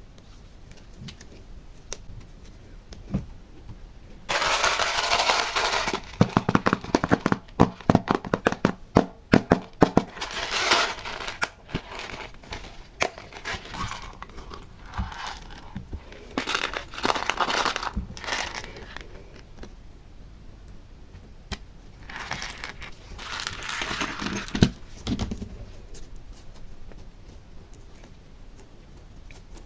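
Slime being worked by hand, with bursts of crinkling and crackling and a quick run of sharp clicking pops in the middle.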